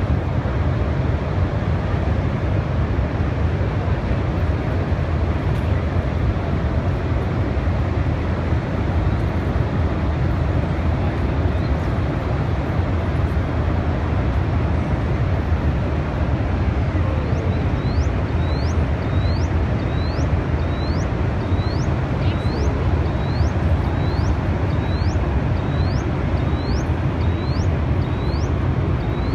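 Steady, heavy roar and rumble of floodwater pouring through the open spillway gates of the Sardar Sarovar Dam into the river below. From a little past halfway, a short high rising chirp repeats about one and a half times a second over the roar.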